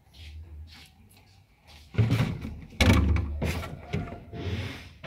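A few dull thumps and scuffing rustles at irregular intervals, the loudest about three seconds in.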